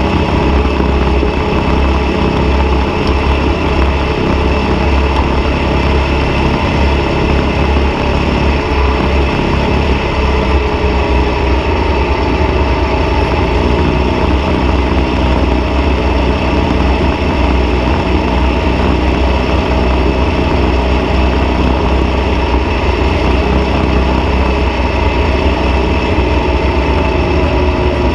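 Off-road dune buggy engine running loud and steady as the buggy drives across sand dunes, its pitch holding nearly constant throughout.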